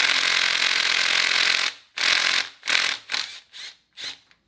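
A cordless impact driver running, first in one long burst of about two seconds, then in several short bursts, as it backs out a bolt on the Ford 302 small-block's timing set.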